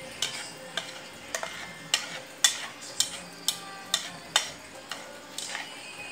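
Chopsticks clicking and scraping against a white ceramic bowl as they stir and gather instant noodles, about two sharp taps a second.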